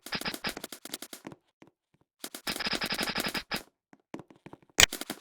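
Airsoft gun firing on full auto in rapid bursts: one burst stops about a second in, and a second burst of just over a second follows. Scattered clicks and one sharp crack come near the end.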